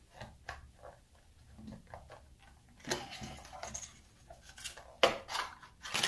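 Plastic cards scraping and clicking in the seam of a plastic relay control module case as they pry it open, with a louder click near the end.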